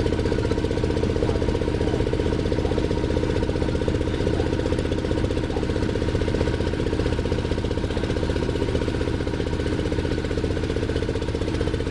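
Small boat's engine running steadily with a fast, even chugging beat, heard from on board as the boat moves through floodwater.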